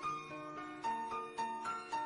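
Background music: a plucked-string melody, notes changing every quarter to half second.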